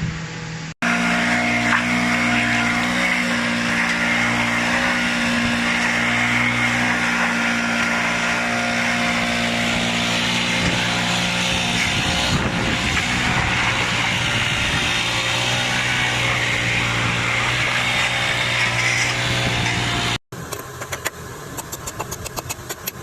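A machine running with a steady hum over a noisy hiss, cut off abruptly near the end and followed by a fast run of clicks.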